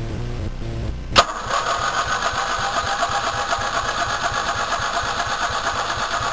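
Starter cranking the 11 hp Columbia mower's 400 cc engine in a steady, even rhythm for about five seconds without it catching, after a sharp click about a second in. The cold engine won't fire because its choke stays open.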